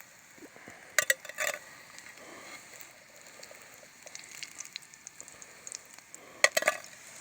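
Nuggets frying in oil in a Tefal frying pan: a steady fine sizzle with crackles and spits. Sharp clattering clacks about a second in and again near the end.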